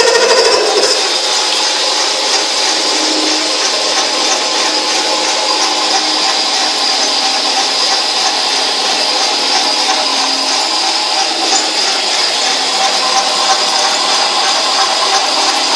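Metal lathe running steadily, turning a length of 1 1/4-inch black steel pipe. A louder, rougher sound dies down about a second in.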